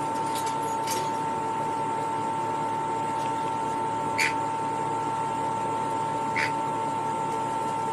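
A parrot gives two short, sharp chirps about two seconds apart, over a steady electrical hum and hiss.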